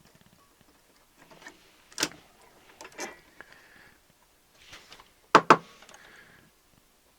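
Small tools and parts being handled on a workbench: a few clicks and knocks, the loudest a sharp double click about five and a half seconds in.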